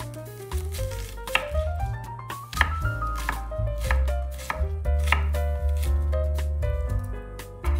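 Knife chopping on a cutting board, with sharp strokes roughly every half second, over light background music with a bass line and a rising run of notes.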